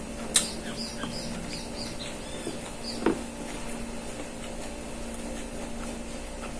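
Quiet eating sounds of a person taking rice and raw vegetables by hand from a plate, with two sharp clicks, about half a second in and about three seconds in, over a steady low hum.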